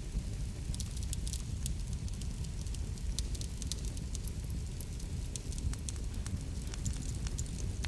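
Wood fire burning, with a steady low rumble and many small sharp crackles and pops scattered irregularly through it.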